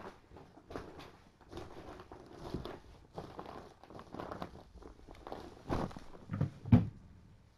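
Footsteps and scuffing of a person walking about on the floor, irregular throughout, with a few heavier thumps near the end, the loudest about seven seconds in.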